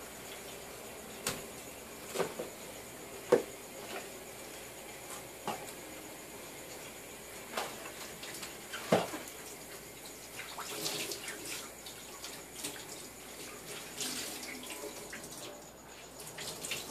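Kitchen tap running into a stainless-steel sink while things are rinsed under it. There are scattered sharp clinks and knocks of items against the sink, several in the first nine seconds and more clatter after that.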